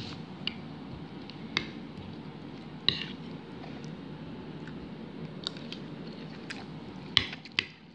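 A person chewing food, with a few short, sharp clicks scattered through it.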